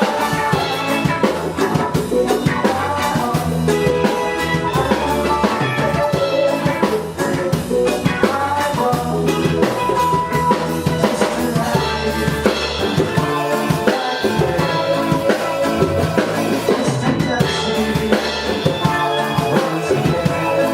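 Music with a drum kit keeping a steady beat under pitched instruments.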